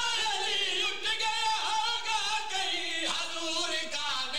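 Several men singing a devotional chant together, their voices sliding between long held notes.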